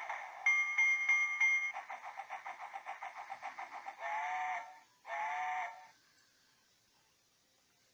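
PlayGo Happy Sound Train toy's electronic sound effects from its small speaker: a bell-like ding three times, then a rapid chugging about five beats a second, then two whistle toots.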